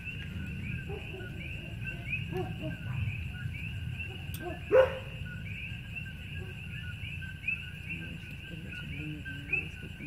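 Dogs barking in the distance, with one louder bark about five seconds in, over a steady night chorus of frogs repeating short rising chirps.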